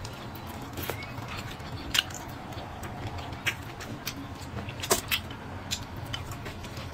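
Close-miked eating sounds: a person chewing, with scattered sharp clicks and smacks, over a low steady hum.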